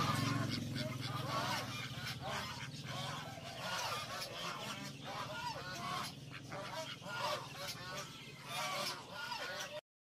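White domestic ducks quacking, with many short nasal calls coming in quick succession, several birds overlapping.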